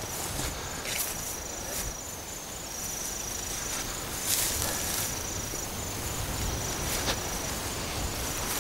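Insects trilling: a high, thin, steady note that comes in stretches of a second or so. Over it, a few brief rustles and footfalls of a person walking through grass and brush, the loudest about four seconds in.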